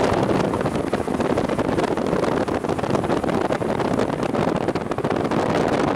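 Wind buffeting the microphone of a camera filmed from a moving car, a dense, gusty rush over the car's road noise.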